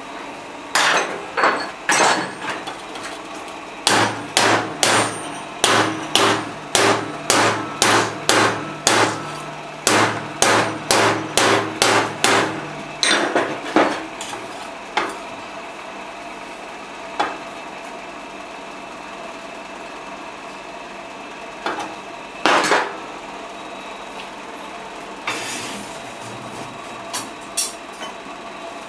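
Hand hammer striking a hot steel blank on an anvil to straighten it, each blow sharp with a short ring. After a few opening blows comes a steady run of about two blows a second lasting some ten seconds, then a few scattered, lighter blows.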